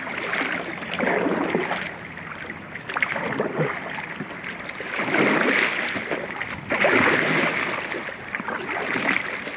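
Kayak paddle strokes splashing in a shallow stream, paddling against the current: swells of water noise about every two seconds.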